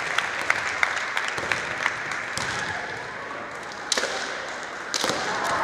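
Irregular sharp clacks and knocks of kendo bamboo swords (shinai) pressing and knocking together, mixed with footfalls on the wooden gym floor, over a steady background murmur in the hall.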